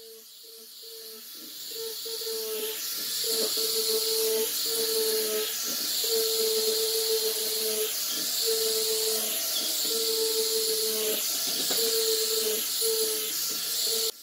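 Angle grinder with a sanding drum running against wooden lamp-shade slats: a steady hiss of abrasive on wood over a motor hum that breaks off and returns every second or so. The sound builds up over the first two seconds.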